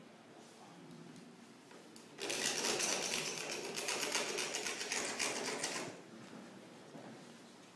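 A loud, rapid mechanical rattle of close, even strokes starts about two seconds in and stops abruptly after nearly four seconds, with faint room noise on either side.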